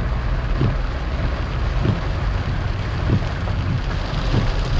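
Steady road and engine noise heard from inside a moving car in rain, with a soft knock repeating about every second and a quarter.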